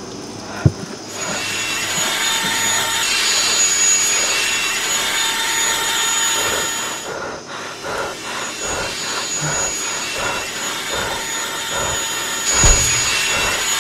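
Whirring, grinding machine noise of the killer robot vacuum, building up about a second in. From about halfway it turns into regular rasping, sawing strokes about three a second, with heavier low thuds near the end.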